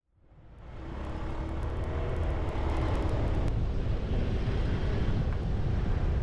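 Motorbike ride: a steady low rumble of engine, traffic and wind on the microphone, fading in over about the first second.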